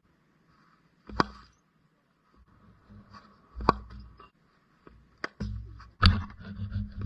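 Cricket bat hitting the ball in the practice nets: four sharp cracks a second or two apart, the last two close together near the end, each with a low thud around it.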